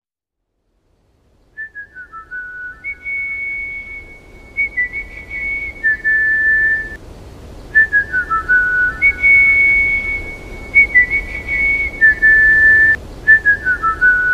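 Whistled melody opening a song, starting after a second and a half of silence: a quick falling run of short notes, then longer held notes, the phrase repeating about every six seconds over a faint low hiss.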